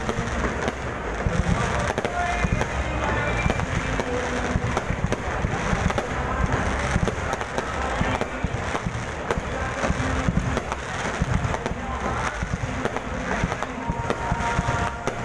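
Aerial firework shells bursting one after another without a break: deep booms with crackling in between.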